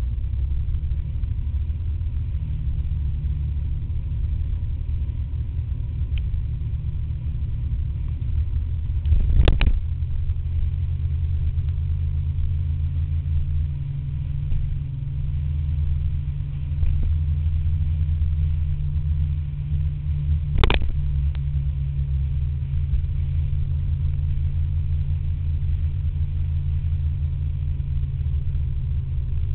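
Riding noise on a scooter: wind rumble on the camera's microphone over the scooter's engine running at cruising speed. Two sharp knocks stand out, about eleven seconds apart.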